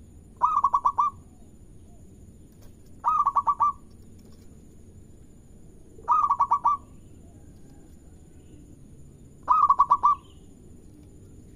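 Zebra dove (perkutut) singing its cooing song: four short phrases about three seconds apart, each a quick run of about five notes.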